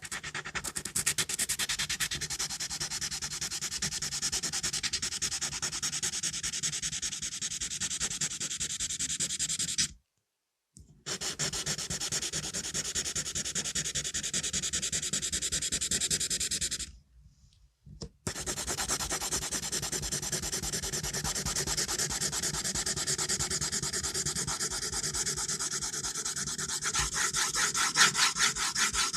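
Pencil scratching across paper in quick, continuous strokes, breaking off twice for about a second.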